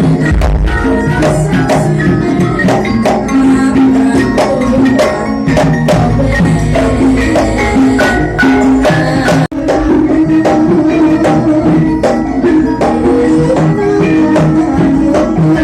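Loud music with busy percussion and tuned melodic notes. The sound drops out for an instant about nine and a half seconds in.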